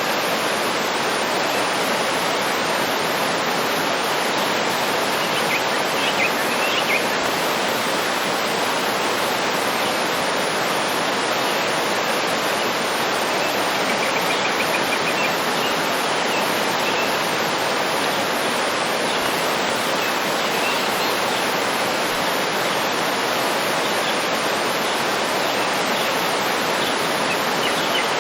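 Waterfall rushing steadily, with a few faint, brief bird chirps over it now and then.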